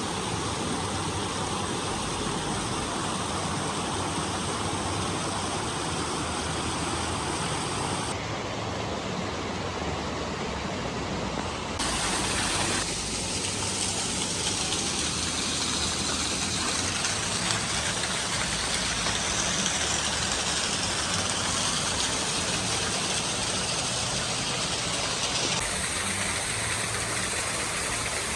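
Waitonga Falls, a 39 m waterfall, pouring: a constant loud rushing of falling water whose tone shifts abruptly three times, about 8, 12 and 26 seconds in.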